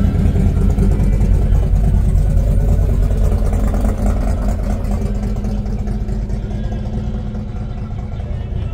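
Car engine idling: a steady low rumble that eases off slightly near the end.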